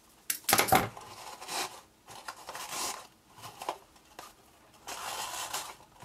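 Scissors snipping off the excess seam binding ribbon, with a few sharp metal clicks about half a second in, then intermittent rustling of ribbon and paper as the bow is handled.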